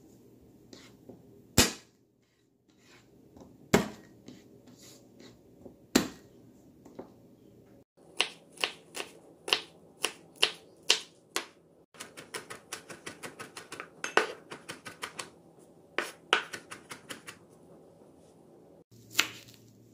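Kitchen knife chopping garlic cloves on a wooden cutting board: a few separate knocks, then steady chopping at about two to three strokes a second, then faster mincing at about four to five strokes a second.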